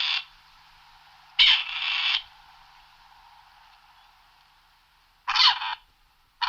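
Grey partridge calling: a harsh, grating, two-part call about a second and a half in, another shorter one a little after five seconds, and the next just starting at the end.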